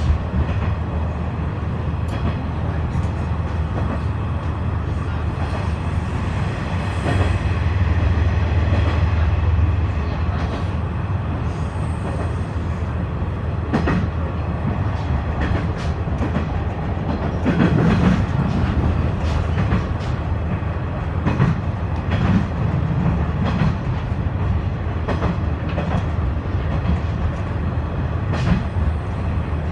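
KiHa 126 series diesel railcar running along the track, heard from inside the car: a steady low rumble and hum, with now and then a sharp clack of the wheels over rail joints.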